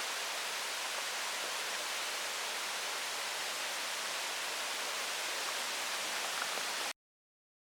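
Steady, even rushing hiss of outdoor ambience with no distinct events, cutting off suddenly to silence near the end.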